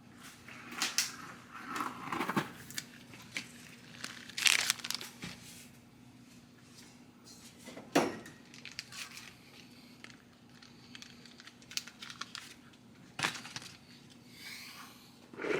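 Plastic kit packaging crinkling and tearing in the hands in irregular bursts, with a couple of sharp knocks.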